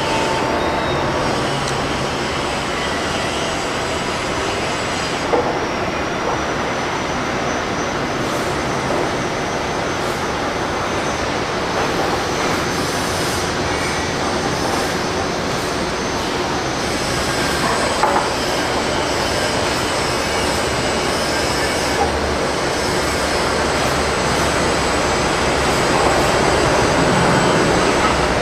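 Airbus A380 jet engines: a steady, loud rush of engine noise with a faint high whine above it as the airliner passes close during takeoff and landing.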